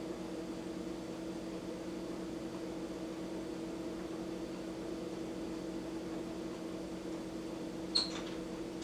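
Steady machine hum made of a few fixed low tones over a faint hiss. About eight seconds in comes one brief, sharp, high-pitched tick.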